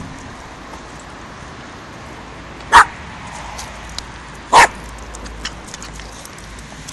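Seven-week-old puppy giving two short, loud yaps a little under two seconds apart.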